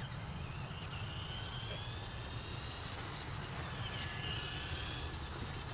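A radio-controlled car's motor whining at speed, the high whine gliding up and down in pitch as it speeds up and slows, over a steady low rumble.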